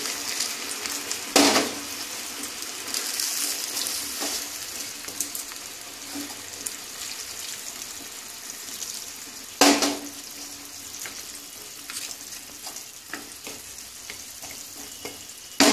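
Chicken and vegetables sizzling in a karahi on a gas flame as water is poured in from a steel mug, with two sharp knocks of metal, one just after the start and one about ten seconds in. Near the end a wooden spatula stirs with small clicks against the pan.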